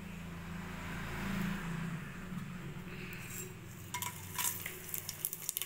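Spices sizzling in hot oil in a pressure cooker, with a low steady hum under it in the first half. Sharp metallic clinks of utensils against the pot start about four seconds in.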